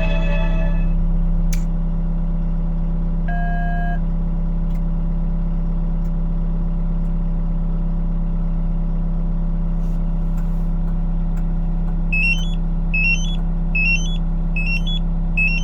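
Hyundai HW65A wheel excavator's diesel engine idling steadily after a remote start. A single electronic beep sounds about three seconds in, and near the end a series of short rising two-note electronic chirps repeats about once a second.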